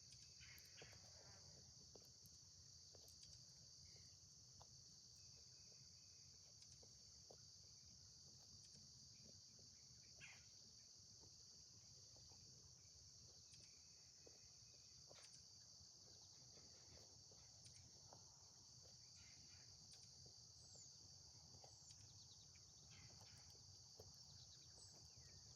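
Faint steady chorus of crickets, a continuous high-pitched trill, with a few faint bird chirps near the end.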